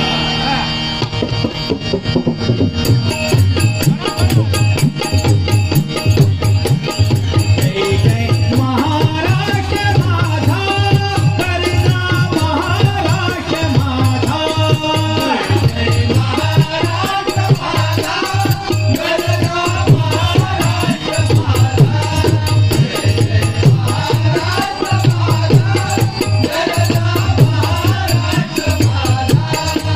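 Double-bari bhajan devotional music: voices singing over a steady drum beat and jingling small percussion.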